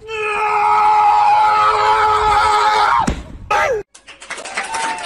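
Dog howling in one long, steady, siren-like note that drops off sharply about three seconds in, followed by a short falling whine.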